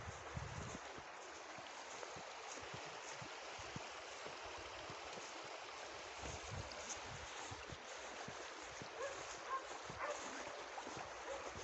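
Shallow river running over stones, a steady rush of water. A few faint short cries come near the end.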